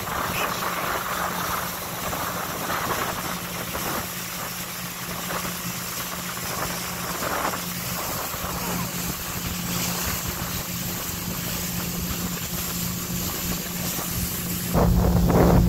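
Motorboat engine running steadily under way, a constant hum over wind and water noise. Near the end it suddenly gets louder with a heavy low rumble.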